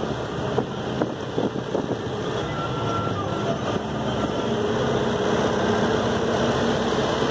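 Bus engine and road noise heard from inside the cabin: a steady low drone that grows a little louder through the clip.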